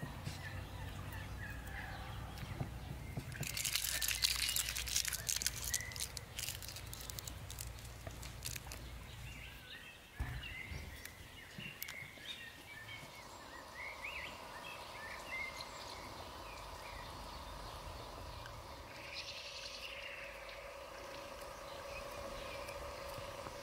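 Birds chirping and poultry calling in the background. A burst of rustling comes about four seconds in, and a steady hum runs from about halfway on.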